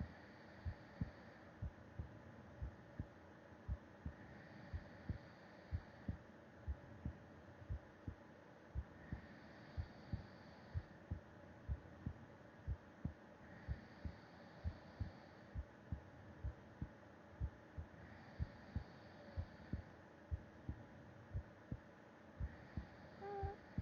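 A sleeping person's heartbeat heard through the chest wall, a steady run of paired lub-dub thuds. Soft, slow breaths sound faintly over it about every four to five seconds.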